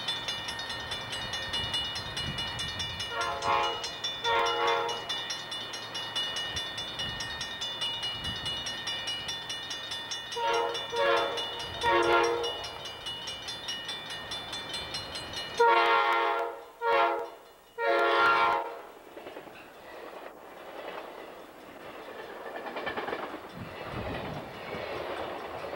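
Amtrak passenger train's multi-chime air horn sounding on approach: two blasts, two more a few seconds later, then a loudest group of three. A steady high-pitched ringing runs under the first blasts and stops as the three begin. The rumble of the train rises toward the end as the cars come by.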